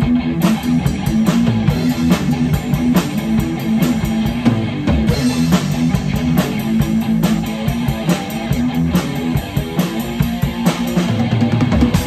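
Live rock jam: a drum kit, its cymbals hit steadily, with an electric guitar played through an amp, recorded on an iPhone 11 Pro's microphones.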